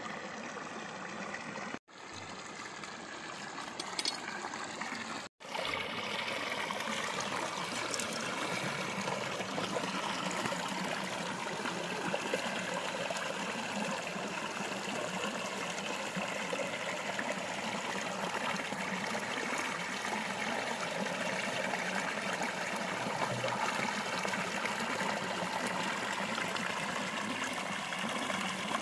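Shallow stream water trickling and flowing steadily, cutting out for an instant twice in the first few seconds.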